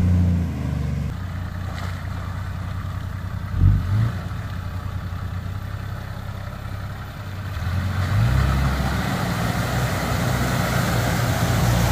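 Off-road 4x4 engine running on a muddy track, with a short rev about four seconds in. From about eight seconds the engine grows louder and rises as a Nissan Patrol drives toward the microphone through a muddy puddle.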